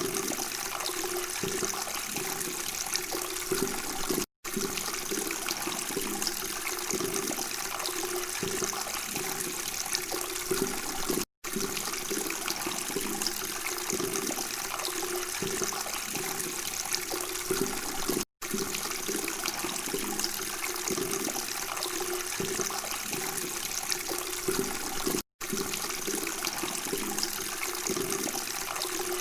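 Water flowing and babbling steadily, cut by a brief dropout to silence about every seven seconds.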